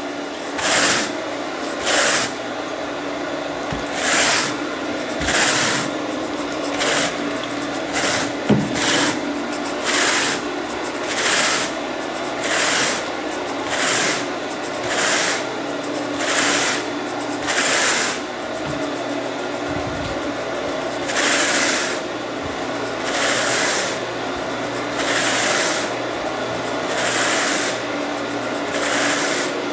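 Carpet rake stroked through freshly cleaned carpet pile, a rasping swish about every second and a half, over a steady low hum.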